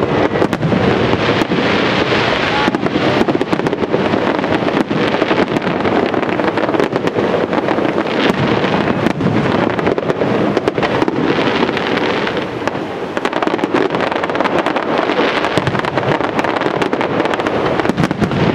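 Professional aerial fireworks display: many shells bursting in rapid succession with dense crackling, a continuous loud volley with no pause.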